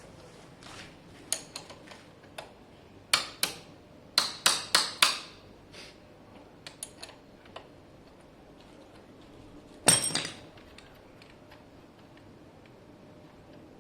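Metal tools and parts clinking and knocking: scattered sharp taps, a quick run of five or six loud strikes about three to five seconds in, and one loud clank about ten seconds in.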